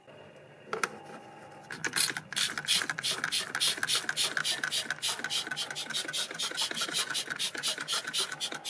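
Hand trigger foam sprayer squirting foam onto a model car body in quick repeated pumps, about five or six squirts a second, starting about two seconds in.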